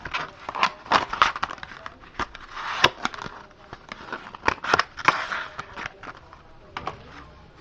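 Cardboard packaging and paper inserts being handled: a run of sharp clicks and scrapes, with two longer rustles about three seconds in and again about five seconds in.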